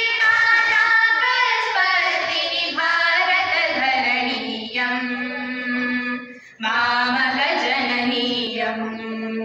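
A small group of girls singing together into stage microphones, holding long notes, with a brief pause about six and a half seconds in.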